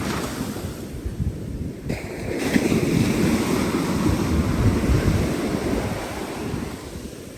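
Waves washing on a beach with wind buffeting the microphone; the wash swells about two and a half seconds in and eases off near the end.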